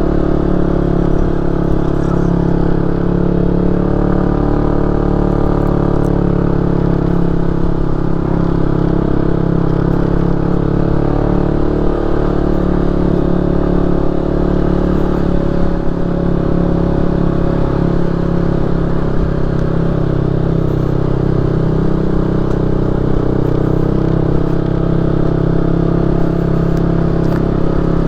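Motorcycle engine running steadily at an even speed while being ridden.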